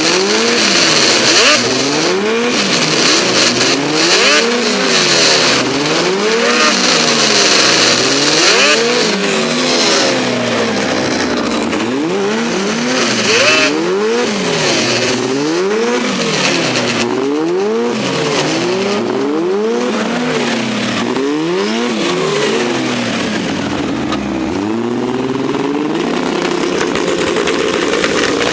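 Turbocharged snowmobile engine revved up and down over and over, roughly one rev every two seconds, with a short steadier stretch near the end.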